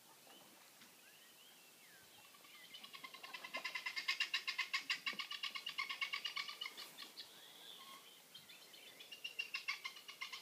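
A rapid pulsed trill from a pond animal, about ten pulses a second, swelling and fading over about five seconds, then starting again for a shorter run near the end. Faint short chirps come before it.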